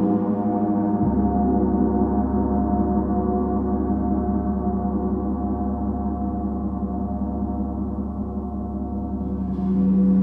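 Gong ringing with a dense wash of sustained, shimmering overtones. A deep low hum comes in about a second in, and the sound swells and brightens again near the end.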